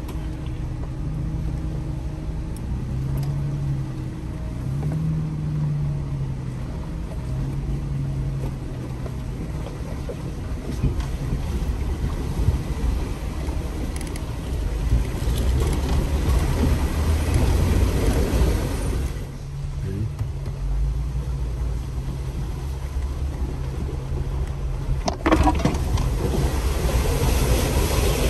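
Off-road Jeep driving slowly through a shallow rocky creek, with the engine note changing and water swishing and splashing around the tyres. The water noise swells and drops off suddenly about two-thirds of the way through, and a sharp splash or knock comes near the end.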